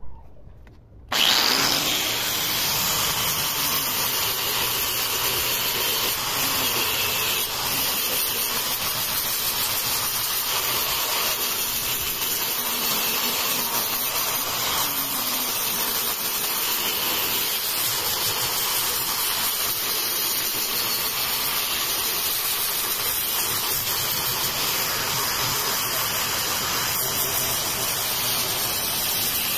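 Electric angle grinder fitted with a sanding disc, starting about a second in and then running steadily as the disc sands the face of a wooden slab.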